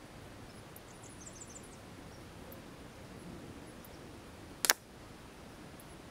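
A .177 air-rifle slug strikes the target once, about three-quarters of the way in, with a single sharp crack over a faint steady background. A few faint high chirps come about a second in.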